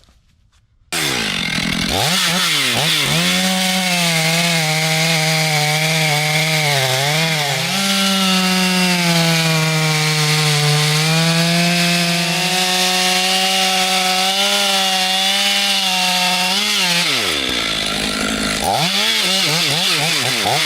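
Small chainsaw running at high revs while cutting into a large log, cutting in abruptly about a second in. The engine pitch dips and recovers again and again as the chain bites into the wood.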